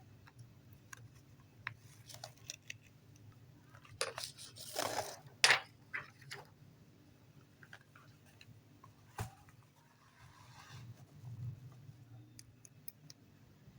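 Faint handling noises: scattered small clicks, with a short run of louder rustling and clicking about four to six seconds in and one sharp click a little after nine seconds, over a low steady hum.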